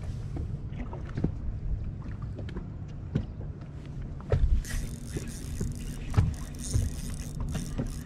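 A boat on the water with a steady low motor hum and scattered short knocks; a hiss joins about halfway through.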